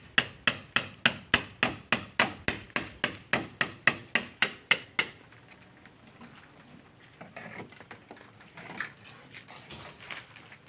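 A hand tool striking a car body panel in rapid, even blows, about three to four a second, for the first five seconds, chipping off old paint and body filler; after that come quieter, irregular scraping sounds.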